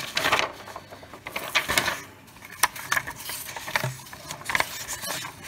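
Paper notebook pages being turned and handled: a string of short, crisp rustles and crackles.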